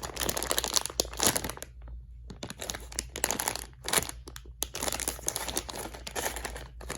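Squishy's packaging crinkling and rustling as it is handled, in several bouts with short pauses between them.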